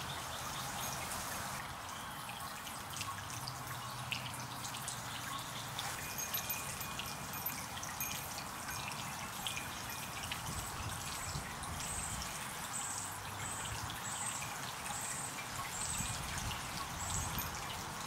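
Small garden water fountain splashing and trickling steadily, its jets of droplets falling back in a constant patter. Faint high chips repeat about once or twice a second in the second half.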